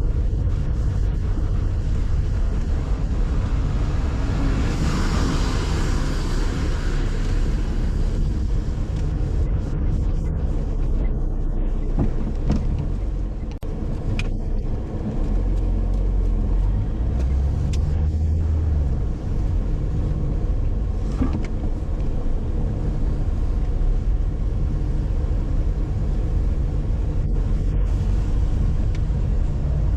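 Car driving: a steady low rumble of engine and road noise, with a louder rushing swell about five seconds in.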